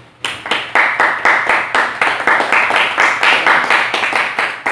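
A small group of people clapping their hands in applause, starting about a quarter second in and keeping an even beat of about four claps a second.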